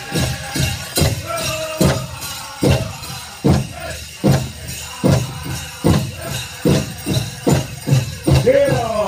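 Powwow drum music for the grand entry: a big drum struck in a steady beat a little over once a second, under a constant metallic jingling from the dancers' bells and jingles. Singers' voices rise in near the end.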